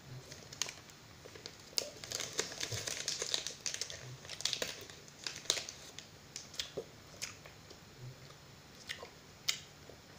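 Crinkly foil wrapper being unwrapped by hand from a small chocolate egg: a run of crackling rustles, busiest in the middle, then a few single crinkles near the end.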